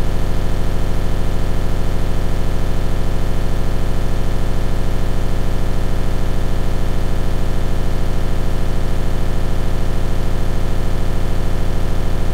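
Search-and-rescue helicopter hovering, its rotor and engines making a loud, steady drone with a fast, even pulse, heard from the open cabin door.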